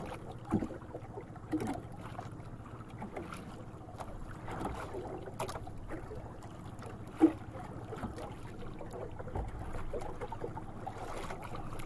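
Steady water and wind noise around a small wooden outrigger boat at sea, with wind on the microphone and a few scattered knocks, the sharpest one about seven seconds in.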